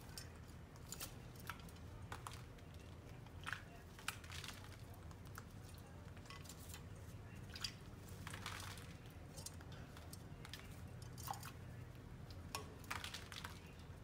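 Quaker parrot bathing in a water bowl, flapping its wet wings and splashing: irregular small splashes, flicks and drips of water, with a longer splash about eight seconds in.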